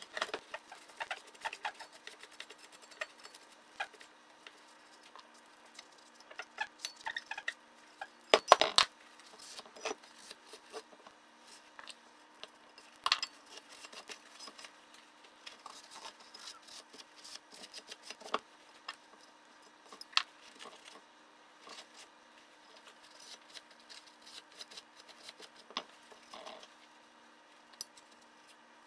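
Scattered clinks and knocks of metal engine parts (two-stroke crankcase halves and crankshaft) being handled and set down on a wooden workbench. The loudest knock comes about eight and a half seconds in.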